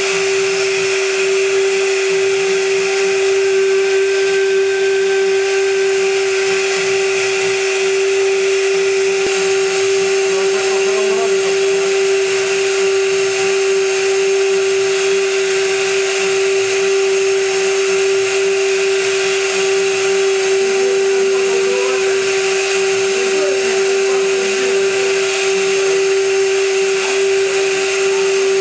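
High-frequency spindle of a CNC gantry milling machine running while it mills aluminium, a steady high-pitched whine with a hiss of cutting over it.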